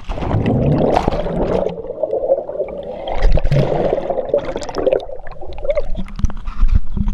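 A splash as the camera plunges into lake water, followed by muffled underwater bubbling and gurgling heard through the submerged camera.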